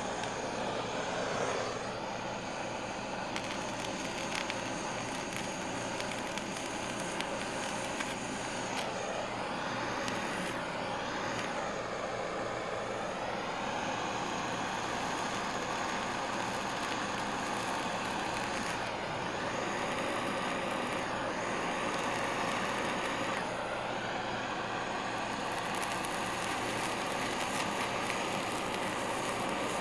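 Handheld kitchen blowtorch burning with a steady hiss as it sears skin-on fish fillets (aburi), the flame flaring yellow where oil renders out of the fish skin.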